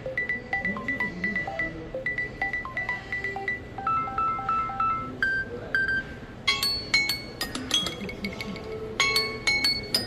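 Samsung Galaxy Z Fold6 ringtone: a bright electronic melody of chiming notes repeating a short figure. About six and a half seconds in, a louder phrase of sharp, bell-like struck notes takes over.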